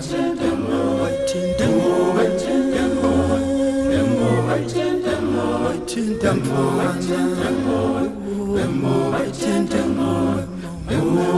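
Background music: an a cappella choir singing, several voices in harmony holding long notes.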